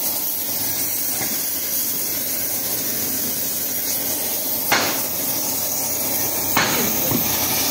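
Two sharp hammer blows, about two seconds apart, during repair work on a tank wheel, over a steady hiss.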